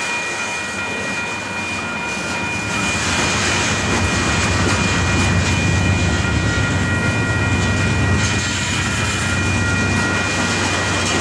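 Union Pacific freight train's covered hopper cars rolling past, the wheels rumbling on the rails and growing louder about three seconds in. A steady high-pitched ringing tone sits over it.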